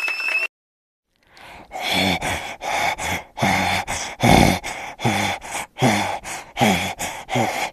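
Hyena giving its laughing call: a fast series of short calls, each dropping in pitch, about two a second, starting a little over a second in after a short gap.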